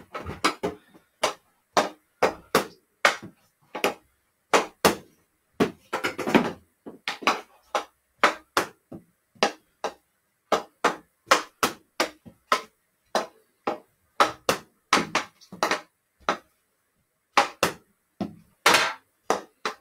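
Hockey stick blade striking a stickhandling ball and the ball rebounding off a wall: an irregular string of sharp knocks, about two a second, echoing in a small room.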